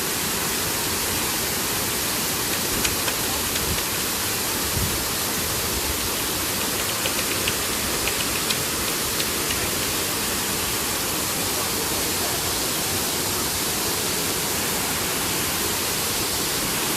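Rocky waterfall on the River Nevis pouring over rocks: a steady, dense rush of white water that holds an even level throughout.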